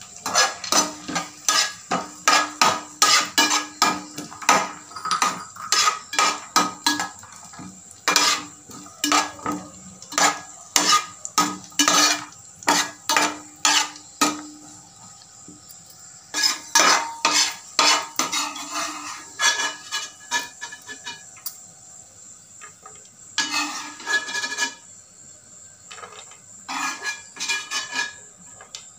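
A steel spatula scrapes and clinks against an aluminium pan, stirring cashews, almonds and raisins as they fry in ghee. Quick strokes come several a second for about the first fifteen seconds, then shorter bunches of scrapes with pauses between them.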